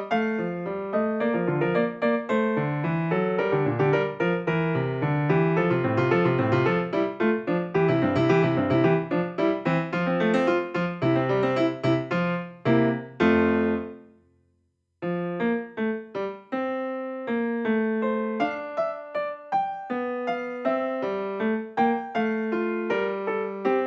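Solo piano music, a steady run of notes that breaks off to silence for about a second near the middle and then picks up again.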